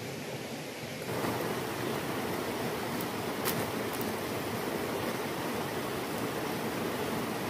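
Steady rushing of a shallow river flowing over rocks, slightly louder from about a second in, with a few faint clicks near the middle.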